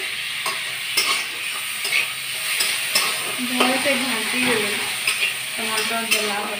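Tomatoes and onion frying with a steady sizzle in a kadai, while a spatula stirs them, knocking and scraping against the pan every half second or so.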